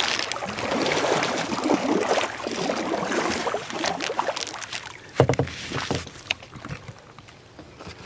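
Moving river water rushing and splashing around a kayak being paddled through a rippled, fast stretch, with paddle strokes in the water. About five seconds in there is a single loud knock, and the water then goes quieter.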